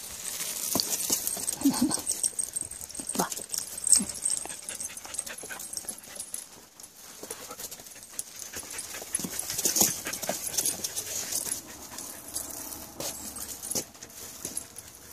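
A husky panting close up, with rustling and clicks as the dogs brush past.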